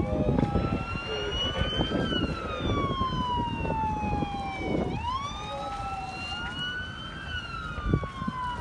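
A wailing siren sweeping slowly up and down in pitch, about one rise and fall every five seconds, over low wind rumble on the microphone.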